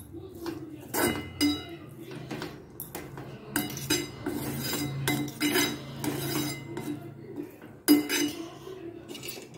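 Metal spatula scraping and clinking against a metal kadai as cooked rice is tossed and stirred, in repeated irregular strokes.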